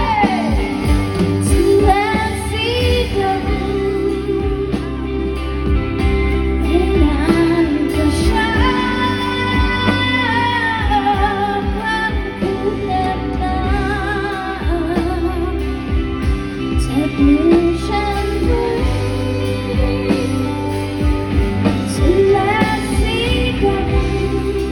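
A Thai pop song: a woman singing a melody over a band backing with bass and drums.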